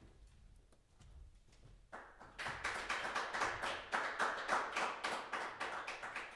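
Audience applauding, starting about two seconds in and going on steadily.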